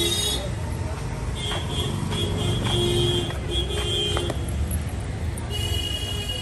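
Street traffic noise with vehicle horns honking: several short, steady horn blasts over a continuous low rumble of passing traffic.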